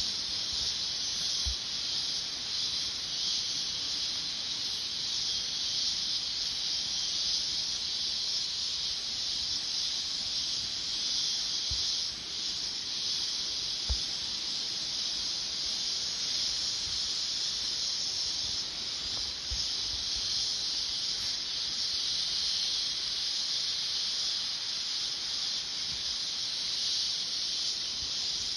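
Chorus of cicadas singing in the trees: a steady, high-pitched shrill buzz that never lets up.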